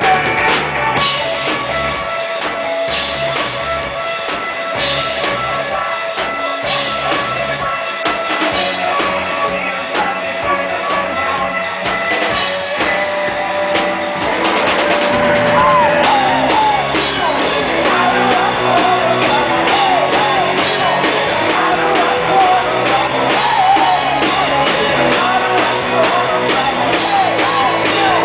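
Live rock band playing, with drums and guitar. The music grows louder about halfway in, when a wavering melody line comes in over it.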